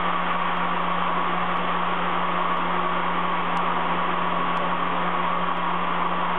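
CNC milling machine's end mill cutting 16MnCr5 steel on an iMachining toolpath: a steady, even cutting noise over a constant low hum from the spindle.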